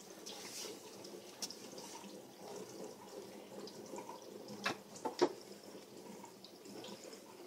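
Cat playing with a toy mouse on a wooden floor: light taps and clicks of paws, claws and toy on the boards over a faint steady hiss, with three sharp clicks close together a little past the middle.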